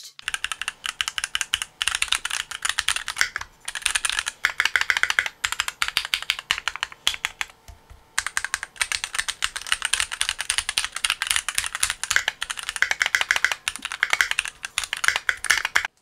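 Fast typing on a Keychron Q3 TKL mechanical keyboard with an aluminium case: a dense, continuous patter of key clicks, with one short break a little before halfway.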